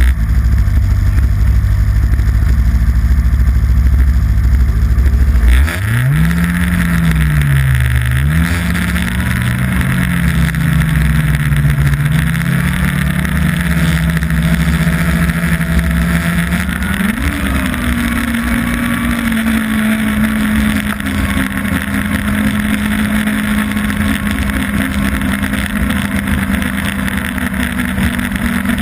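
Yamaha Apex snowmobile's four-stroke engine running under way, with a deep low rumble at first. About six seconds in, the engine note rises and wavers as the sled speeds up, then climbs again about two-thirds of the way through and holds steady, over a constant hiss.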